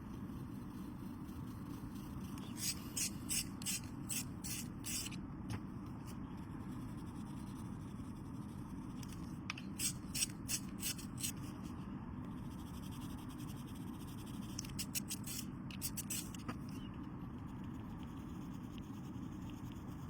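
Coloured pencil scratching on paper in three bursts of quick strokes, over a steady low hum.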